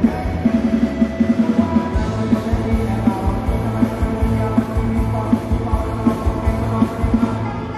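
Live band music played loud through a PA system, with a steady drum beat under sustained instrumental notes.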